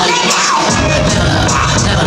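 Loud dance music with a steady beat played over the arena's sound system. The bass drops out for a moment at the start and comes back in under a second.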